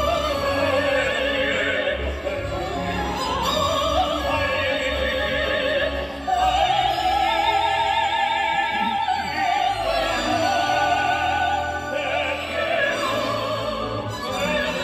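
Operatic duet of a soprano and a male singer, sung with wide vibrato over a live symphony orchestra, with a long held note in the middle.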